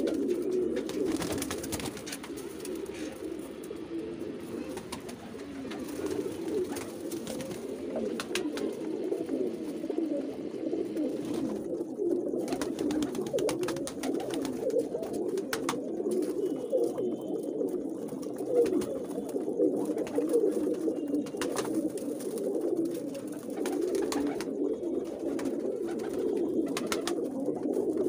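A flock of domestic high-flyer pigeons cooing continuously, many calls overlapping into a steady low chorus, with a few sharp clicks now and then.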